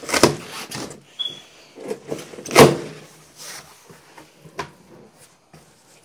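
Cardboard shipping-box flaps being pulled open and handled, with a loud scraping knock about two and a half seconds in and a brief squeak shortly before it.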